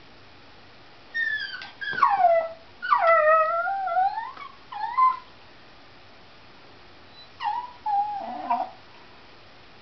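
Small white terrier whining hysterically at a cat outside, in high cries that slide down in pitch. One run of several whines and yelps is followed, after a pause of about two seconds, by a shorter second run.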